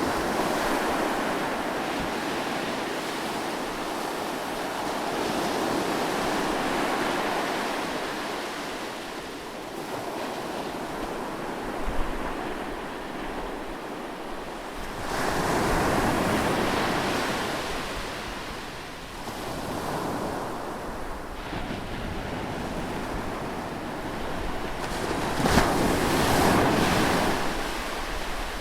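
Ocean surf breaking on a beach, the wash swelling and ebbing, with the biggest surges about halfway through and near the end. Wind rumbles on the microphone now and then.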